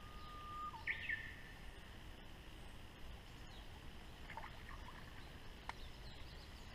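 Quiet open-air ambience with a bird calling. Near the start it holds one whistled note for about half a second, then drops and breaks into a short, quicker phrase at a higher pitch; a few softer chirps follow about halfway through.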